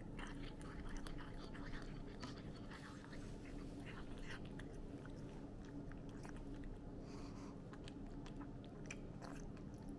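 A cat chewing a salmon-flavoured pet chocolate treat: faint, quick, irregular crunching and biting.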